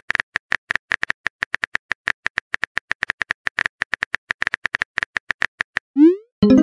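Texting-app keyboard sound effect: a quick, even run of short clicks, about seven or eight a second, as a message is typed. Near the end comes a short rising swoop and a chime, the message-sent sound.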